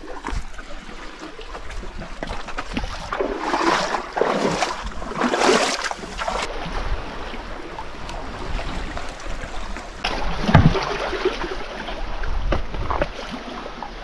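Water splashing and sloshing as a person moves through seawater, in irregular surges, loudest about four to six seconds in and again about ten and a half seconds in.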